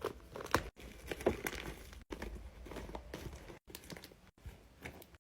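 Paper crinkling and crackling in irregular small clicks as a handmade, tape-covered paper squishy is squeezed and pressed to check whether it holds air.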